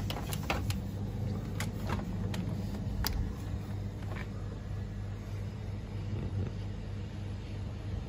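A steady low rumble with a constant hum under it, and a few sharp clicks in the first three seconds.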